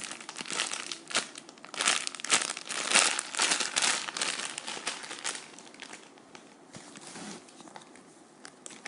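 Plastic packaging crinkling in quick irregular bursts as a squishy toy is handled, busiest in the first half and thinning to faint crinkles later.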